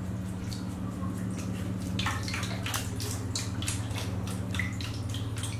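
Water splashing and sloshing in a plastic basin as hands push floating plastic toys through it, in many small irregular splashes. A steady low hum runs underneath.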